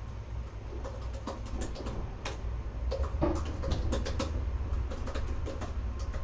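Room noise: a steady low hum with scattered sharp clicks and light taps, thickest about one to four seconds in.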